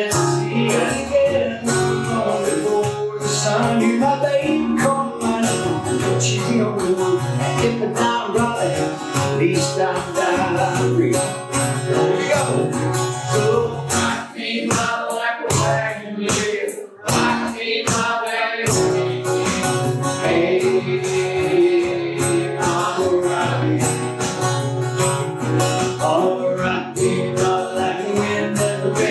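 Acoustic guitar strummed in a steady rhythm, with a man singing over it, live into a microphone.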